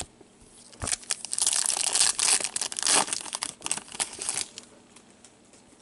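Foil wrapper of a hockey card pack being torn open and crinkled, a dense crackling from about a second in that dies away after about four and a half seconds.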